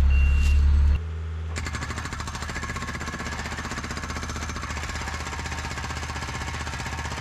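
Truck engine running with one reversing beep, then after a cut, a skid steer's hydraulic breaker hammering on old concrete in a rapid, steady rhythm, breaking up the slab.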